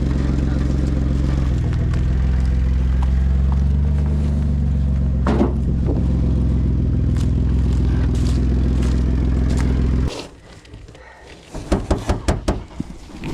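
Car engine running steadily at low speed, towing a trailer of rocks, with a single crunch about halfway through. The engine sound cuts off suddenly near the end, and a quick string of sharp knocks and clatter follows.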